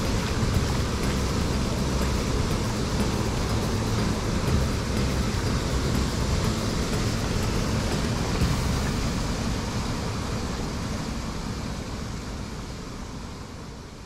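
Mountain stream running over a shallow rocky bed, a steady rushing noise that fades out over the last few seconds.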